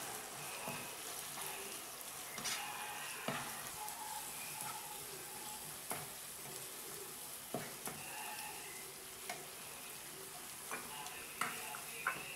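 Onions, chillies and sauce sizzling in a nonstick frying pan while a slotted spatula stirs them in with chilli powder, scraping and tapping against the pan every second or two over a steady frying hiss.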